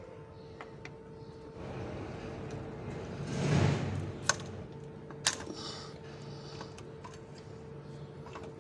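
Metal parts of a Toyota Hilux D4D diesel's EGR valve assembly clinking and knocking as it is worked loose by hand and lifted off the intake, with two sharp clinks about four and five seconds in. A rush of noise swells and fades just before the clinks, over a steady faint hum.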